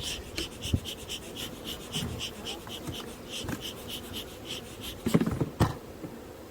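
Bee smoker's bellows pumped quickly, giving a short squeaky puff about five times a second for roughly four seconds, followed by a few knocks.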